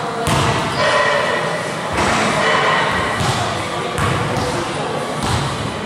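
A basketball bouncing and thudding on an indoor gym floor, a few irregular hits that echo in the large hall.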